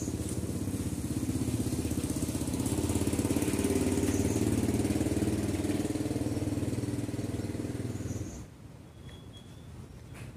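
A small engine running steadily, a little louder in the middle, then stopping abruptly about eight seconds in.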